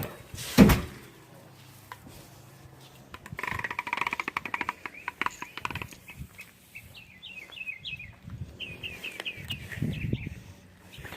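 A single loud thump about half a second in, then a stretch of clicking and short, quick bird chirps.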